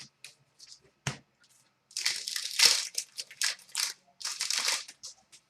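A trading card pack's wrapper being torn open and crinkled, in crackly spells for about three seconds, after a few light taps and a sharper knock in the first second or so.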